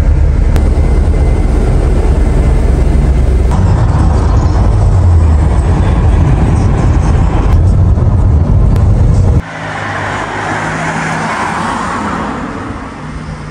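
Car driving, a loud steady low road rumble. About nine seconds in it changes abruptly to quieter street traffic noise.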